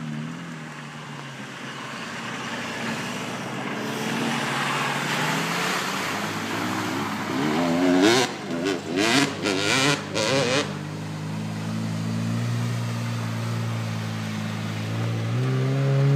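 Off-road 4x4's engine working through mud and water, with a rising rush of noise as it ploughs in; about eight seconds in it revs hard in several quick, uneven bursts, then settles to a steady pull and builds again near the end as it climbs.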